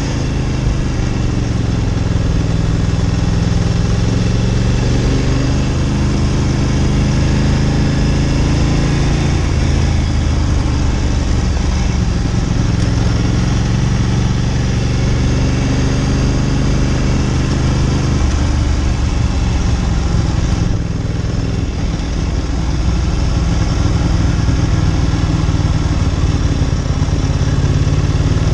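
Ducati Monster 900's air-cooled V-twin running under way at moderate revs, the engine note steady but shifting in pitch a few times.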